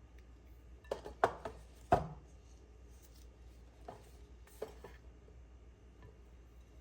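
A few sharp, irregular knocks and clinks of kitchen items being handled, the loudest two close together in the first two seconds, then two fainter ones.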